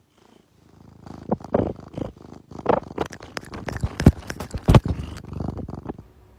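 A cat purring close to the microphone, starting about a second in and stopping near the end, with irregular sharp clicks and knocks mixed in.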